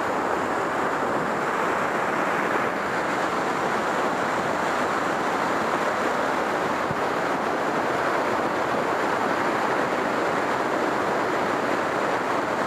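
Waterfall pouring down rocks close to the microphone: a steady, loud rush of falling water.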